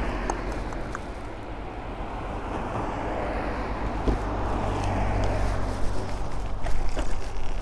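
Passing road traffic and wind on the microphone: a vehicle's noise swells and fades in the middle, and the wind gets gustier near the end as the scooter moves off.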